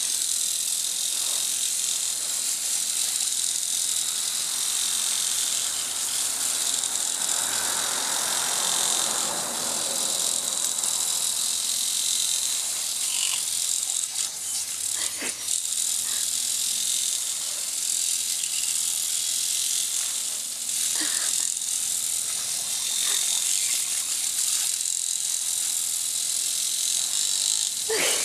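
Lawn sprinkler spraying water with a steady hiss, a husky biting and lapping at the spray; a few short sharp snaps stand out partway through and near the end.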